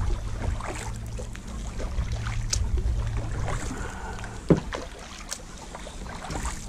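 Kayak paddle strokes: the blades dip and splash beside the hull, with scattered drips and a low rumble of wind on the microphone. A low steady hum fades out about four seconds in, and a single sharp knock comes soon after.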